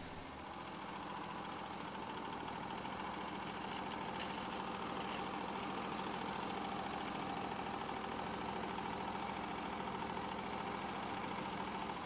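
A portable band sawmill's 23 hp Briggs & Stratton engine running steadily at an even speed.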